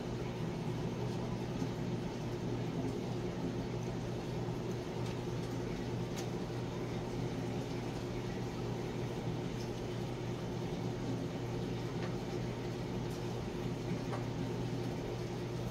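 Aquarium air pump and filter running: a steady low hum under an even hiss of bubbling water, with a few faint ticks.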